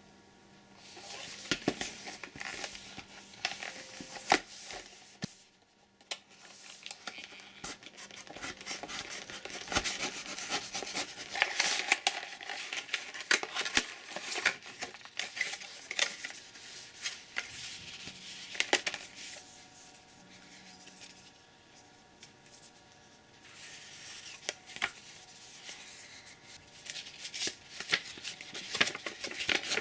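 Cardboard product box and paper packaging being handled and opened: rustling and scraping with frequent sharp taps and clicks, with two brief lulls, and a folded paper insert being unfolded near the end.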